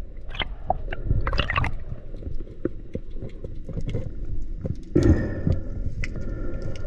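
Underwater sound heard through an action camera's housing: a low muffled rumble of moving water with many scattered clicks and knocks.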